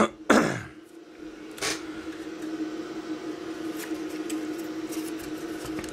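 A ZX Spectrum circuit board being handled and turned over on a workbench: two sharp knocks right at the start and a lighter click less than two seconds in. A steady hum runs underneath throughout.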